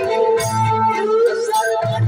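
Instrumental passage of Bhojpuri Purvi folk music: a reed-organ-like melody held in long notes over regular hand-drum strokes and bright metallic strikes.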